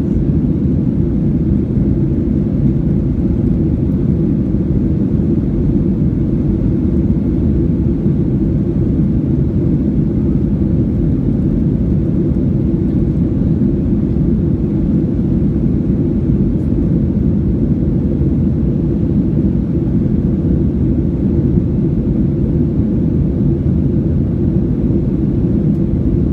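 Steady low rumble of engine and airflow noise inside the cabin of a Boeing 737-800 under way, even throughout with no change in pitch or level.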